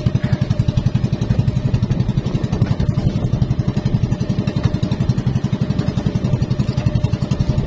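Small engine of a motorized outrigger boat (bangka) running steadily under way, a loud, fast, even putter close by.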